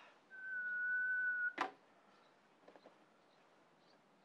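A single steady high-pitched tone lasting about a second, cut off by a sharp click, then near quiet with a few faint ticks and another click at the very end.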